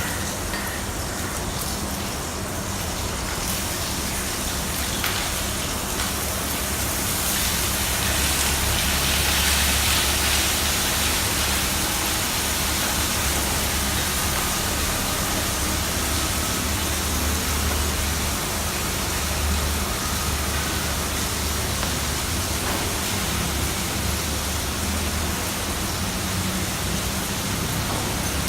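Chopped vegetables (cabbage, carrot, onion, peas and capsicum) sizzling as they fry in hot oil in a kadhai, a steady hiss with a low hum underneath.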